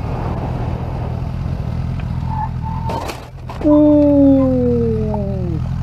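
Sport motorcycle engine running under way. About three and a half seconds in it revs up loudly, and the pitch then falls steadily over about two seconds as the revs drop.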